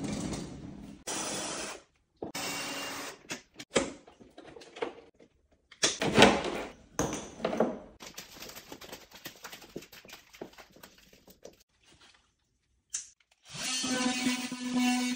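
Kitchen cabinet fitting work: a string of short bursts of knocks and clatter from wooden units and doors being handled, with cuts between them.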